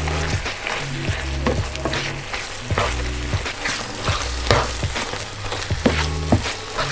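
Food sizzling as it fries in a pan, with sharp clicks and scrapes of a utensil stirring it, over background music with a bass line.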